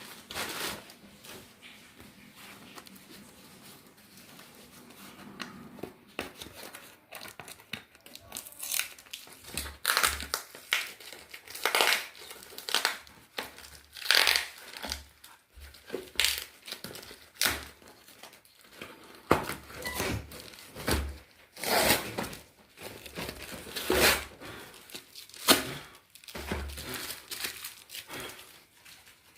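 Packaging being unwrapped by hand: irregular crinkling, crumpling and tearing. It is fainter at first, then comes in louder bursts about every second from roughly eight seconds in.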